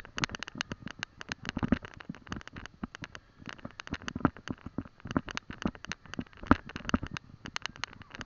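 Dense, irregular crackling and clicking, several clicks a second, from the microphone of a camera being carried while walking: handling and rubbing noise.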